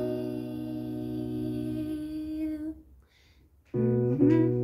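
A woman's voice holds one long steady hummed note over a ringing acoustic guitar chord, fading out just under three seconds in. After about a second of silence, the guitar is strummed again and her voice comes back in.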